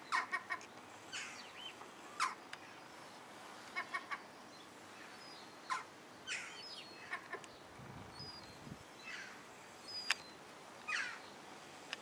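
Herring gulls calling: a quick run of short, sharp notes at the start and again about four seconds in, and thin falling calls every second or two. A brief low rumble about eight seconds in.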